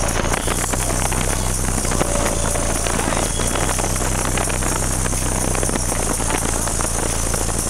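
Car-audio subwoofers playing very loud, steady deep bass that fills the vehicle's cabin, with a rough buzzing, rattling edge over the low notes.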